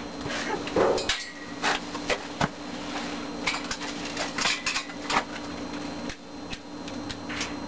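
A series of irregular metal knocks and clanks from the welded steel frame of a homemade forklift being handled and fitted around a water tote's metal cage.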